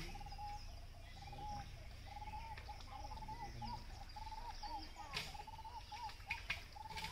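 A bird repeating a short, arched call note in a long, even series, with other birds chirping faintly above it. A few sharp clicks, likely squelches in wet mud, come between about five and six and a half seconds in.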